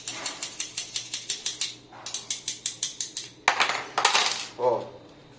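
Rapid light metal-on-metal tapping, about nine taps a second, on the side of a Rossi Gallery .22 rifle's magazine tube to knock a part loose, in two runs with a short break, followed by two short, louder scraping rasps.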